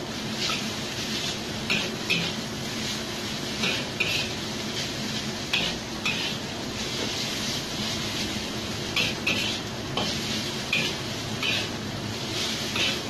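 Metal spatula scraping and knocking against a wok every second or two as udon noodles are stir-fried, over the steady sizzle of the noodles frying.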